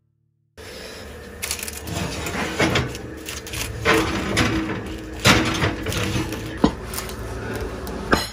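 A baked pie in a ceramic dish being taken out of the oven with oven mitts: sharp knocks and clatters of the dish against the metal oven rack, about six in all, over a steady low hum. The last clatter, near the end, is the dish being set down on a wooden board.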